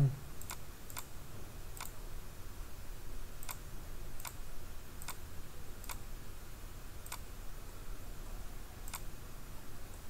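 Computer mouse button clicking: about nine single sharp clicks, spaced unevenly, over a faint low hum.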